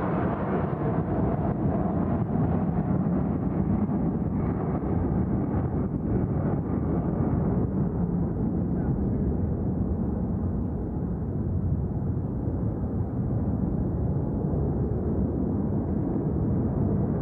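Concorde's four Olympus 593 turbojets heard from a distance as it flies past: a steady, deep rumble whose hissing top end slowly fades over the first half.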